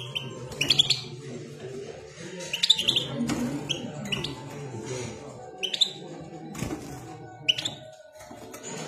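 Caged European goldfinch giving short, bright chirps and twittering notes, spaced about every half second to a second, over a low steady background.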